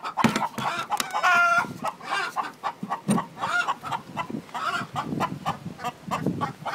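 Domestic chickens clucking: many short calls in quick succession, with a longer drawn-out call about a second in.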